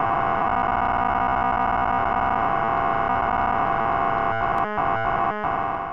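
A distorted synthesizer drone, steady and dense, that stutters with a few brief drop-outs near the end and then cuts off.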